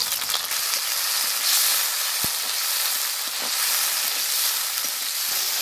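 Tomatoes, onions and green chillies sizzling in hot mustard oil in a wok, stirred with a metal spatula. The sizzle grows stronger about a second and a half in.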